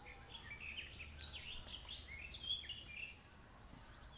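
Small birds chirping, a quick run of short rising and falling calls that thins out near the end.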